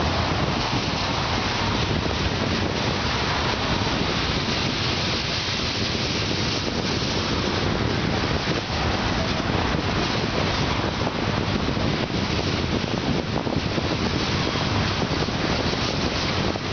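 Loaded coal train rolling past, its steel wheels running on the rails in a steady, even noise, mixed with wind on the microphone.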